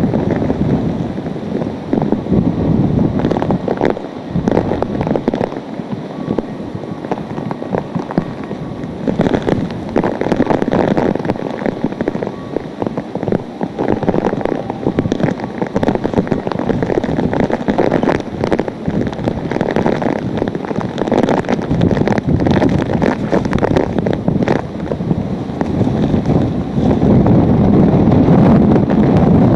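Hurricane-force wind and driving rain of Hurricane Katrina, gusting hard and buffeting the microphone, with rain lashing the street. The gusts come and go unevenly and swell louder near the end.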